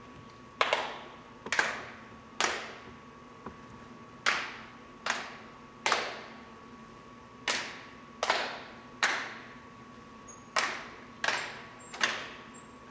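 Sharp percussive strikes in four groups of three, evenly paced, each ringing out briefly in a reverberant hall, over a faint steady electrical hum.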